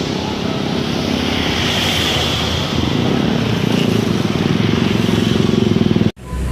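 Road traffic: a motor vehicle engine running close by, growing louder over the last few seconds as it approaches, then cut off abruptly about six seconds in.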